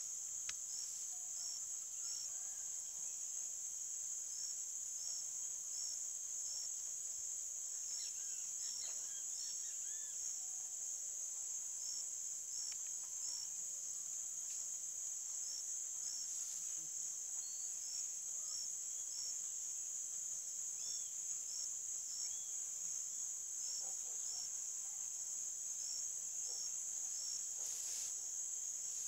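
Steady high-pitched chirring of insects in grass, with a fainter short chirp repeating about twice a second at times. A few faint rustles or knocks come through, one near the end.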